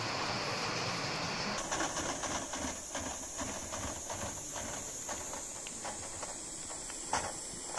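Gauge 1 model train wheels rolling on the track. About one and a half seconds in, this gives way abruptly to a steady hiss with scattered irregular clicks around the model of steam locomotive 18 201, with one louder click near the end.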